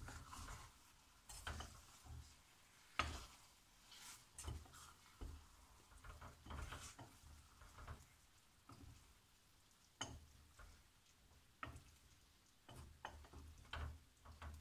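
Gnocchi being stirred and tossed in a small saucepan with a wooden spatula and a second utensil: faint, irregular scrapes and knocks of the utensils against the pan, the sharpest about three seconds in and again about ten seconds in.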